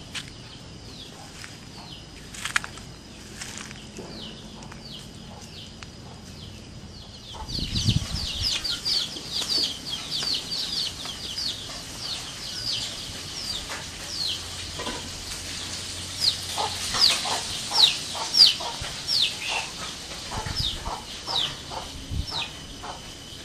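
Birds chirping in many quick, short, falling notes, sparse at first and then thick and busy from about seven seconds in, over a thin steady drone of insects. A dull thump comes near the point where the chirping picks up.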